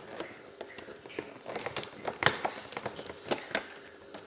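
Speaker box and its packaging being opened by hand: crinkling and rustling with a run of sharp taps and clicks, the loudest a little past two seconds in.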